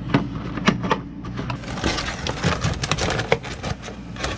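Cardboard box flaps and stiff plastic clamshell packaging rustling, crackling and clicking as a boxed bilge pump is handled and pulled out. The crinkling gets denser about halfway through. A steady low hum runs underneath.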